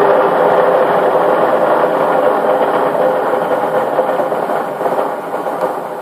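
Pillar drill running with its bit cutting into metal under hand feed, the bit wetted with glycerol as cutting fluid; a steady grinding machine noise that eases a little near the end.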